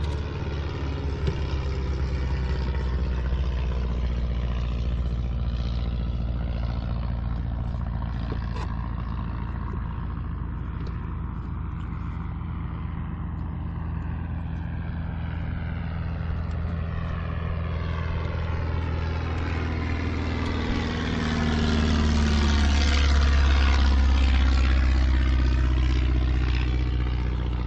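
Motorboat engine running steadily, drawing closer and getting louder about two-thirds through, then easing off as it passes.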